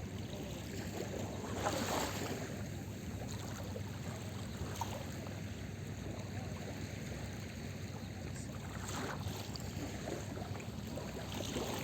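Small sea waves washing onto a beach, a steady wash with louder breaking splashes about two seconds in, around nine seconds and again near the end, over a low rumble.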